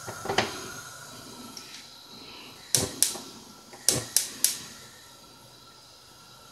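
A series of sharp clicks and knocks from cookware being handled on the cooker: one near the start, a quick pair a little under three seconds in, then a quick run of three about a second later.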